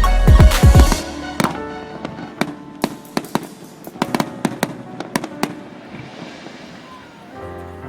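Fireworks going off: deep booms and dense crackling for about the first second, then scattered sharp pops and crackles that thin out, with music playing underneath.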